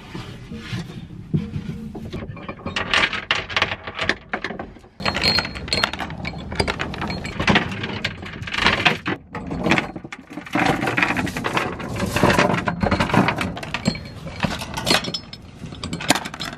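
Galvanized steel anchor chain clanking and rattling as it is fed through the deck pipe and links pile up in the anchor locker: a long, irregular run of metal clinks with short pauses.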